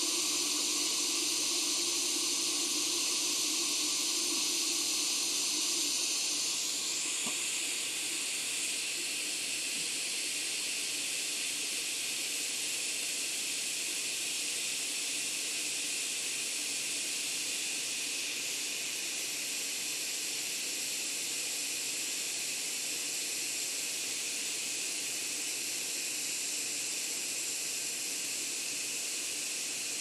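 Hot air rework station blowing a steady hiss over the circuit board as the replacement Xbox Series X power connector's solder joints are reflowed with fresh flux. The hiss changes slightly about seven seconds in.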